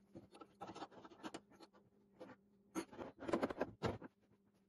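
Orange rubber mallet knocking on the wooden cart frame and its metal bracket, a quick run of blows loudest about three to four seconds in, among the clatter of a wrench and other hand tools being handled and set down.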